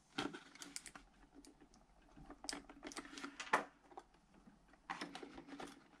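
Faint, irregular light clicks and taps of fingers handling the metal brackets and circuit board inside an opened iMac.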